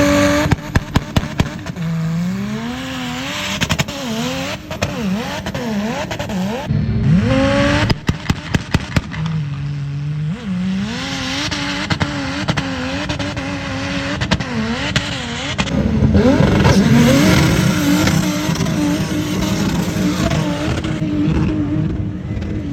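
Off-road 4x4 vehicle engines revving, rising and falling in pitch again and again, then holding a higher steady note in the second half. Two quick runs of sharp cracks come through, one just after the start and one about a third of the way in.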